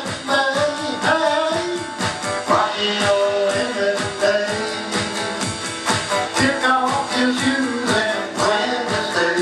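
Rock song played by a guitar-and-drums duo: guitar with electronic drums keeping a steady beat, and a melody line over them.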